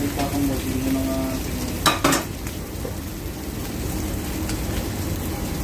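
Cheese-topped burger patties sizzling steadily on a flat-top griddle, with two sharp clicks about two seconds in.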